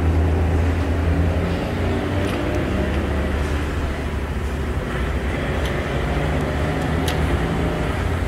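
Steady low machine hum, with a few short light clicks as a wheel-alignment sensor clamp is fitted onto a truck wheel.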